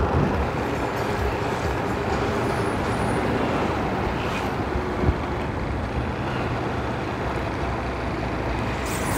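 A motorcycle running steadily at street speed, with wind and road noise on the bike-mounted microphone. There is a short knock about five seconds in.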